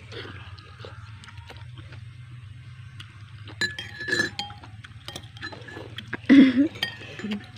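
Metal spoons clinking and scraping against ceramic soup bowls, with small ringing clinks a little after the middle. A short, loud pitched vocal sound comes about six seconds in.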